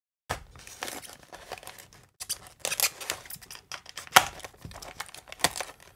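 A plastic blister pack being torn and pried open by hand, the clear plastic crinkling and crackling in irregular spurts, with a sharp crack about four seconds in.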